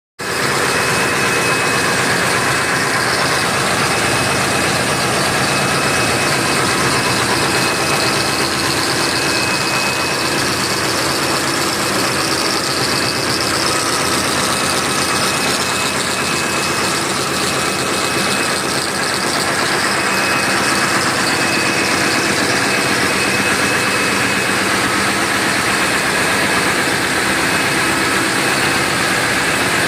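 Cummins QSK60 16-cylinder marine diesel main engine running steadily at idle while warming up, a loud, even drone with a steady high whine in it.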